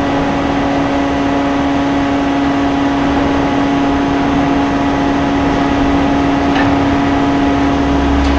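A 3000-ton hot forming press for dished tank heads running: a steady, loud machine hum with one strong whining pitch and fainter higher overtones. A deeper rumble swells in near the end.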